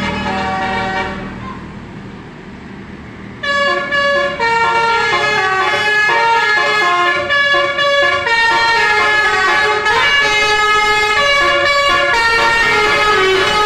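Indonesian bus 'telolet' horn, a multi-tone horn set playing a quick melody of short stepping notes. It comes in loud about three and a half seconds in, after a quieter stretch, and plays on without a break.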